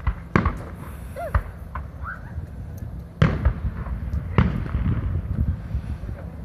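Aerial fireworks shells bursting in the sky: a run of sharp booms, some close together, the loudest about three seconds in, with a low rumbling echo between them.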